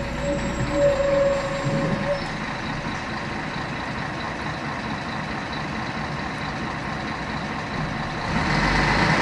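Scania K113CRB coach's diesel engine and cabin noise heard from inside the coach, running steadily at a moderate level. A steady high tone sounds for about the first two seconds. Near the end the engine grows louder as the coach begins to accelerate.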